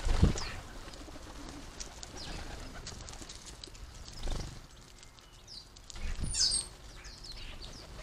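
Garden birds chirping around a seed feeder, with wings flapping as small birds land and take off: a loud flutter just after the start and more about four and six seconds in.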